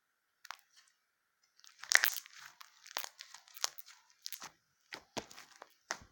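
Slime being squeezed and pulled by hand, giving sharp crunchy crackles and pops: a dense burst about two seconds in, then single snaps roughly every half second.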